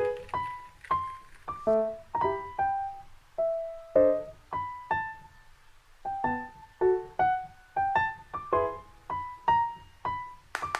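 Background music: a melody of single piano notes, each struck and fading, about two a second.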